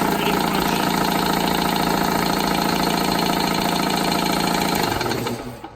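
Single-phase commercial duty electric air compressor running steadily under power, then shutting down and winding off about five seconds in.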